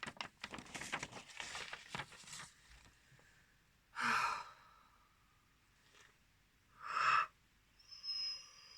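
A person sighing heavily twice, two long breathy exhales about three seconds apart. A faint, steady high-pitched tone begins near the end.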